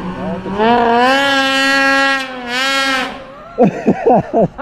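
Mountain snowmobile's engine held at high revs for about two and a half seconds, with a brief let-off near the middle, then dropping away. A few quick warbling sounds follow near the end.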